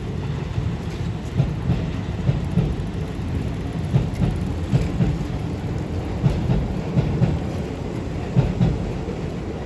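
Keisei 3700 series electric train running past, with a steady low rumble and irregular heavy clacks as its wheels cross the rail joints and the level crossing.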